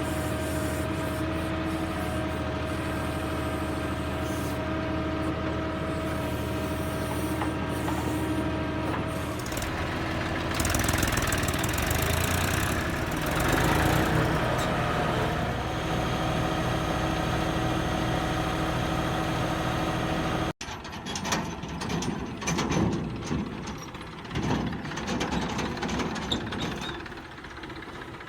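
Tractor engine running steadily, then working harder for several seconds near the middle as a backhoe loader digs and loads. After an abrupt cut, the engine runs with irregular knocks and clanks over it.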